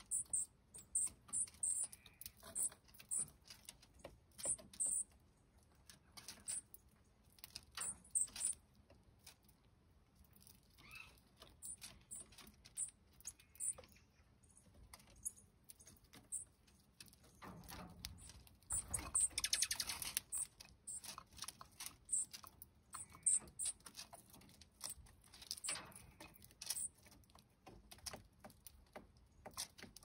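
Dark-eyed juncos foraging in a wooden platform feeder of black sunflower seeds: scattered small clicks and high ticks as seeds are picked and shuffled, with a longer, louder rustle about nineteen to twenty seconds in.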